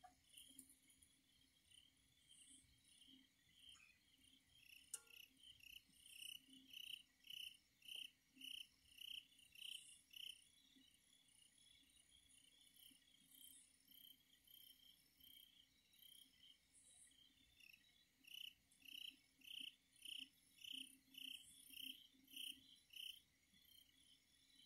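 Faint crickets chirping at night: a rhythmic chirp about twice a second that comes in two long runs, over a fainter, higher insect trill. A single sharp click about five seconds in.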